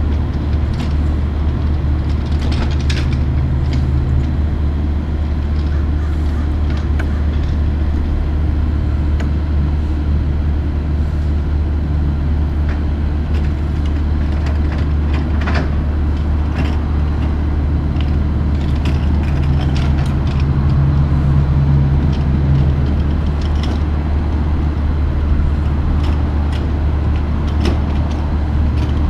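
A heavy diesel engine idling steadily with a deep drone. Short knocks and clatter scattered over it come from plastic crates and a pallet jack being handled.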